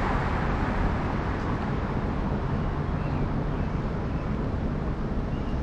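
Steady outdoor rumble of road traffic with wind on the microphone, easing slightly after the start.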